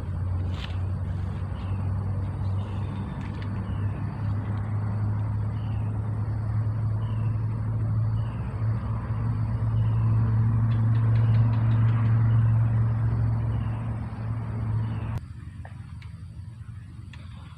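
A motor engine running steadily at a low, unchanging pitch, cutting off suddenly about fifteen seconds in.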